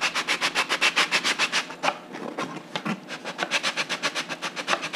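Sanding block rubbed rapidly back and forth along the edge of a wooden hydroplane part, a quick rasping rhythm of several strokes a second. The strokes ease off about two seconds in and pick up again about a second later.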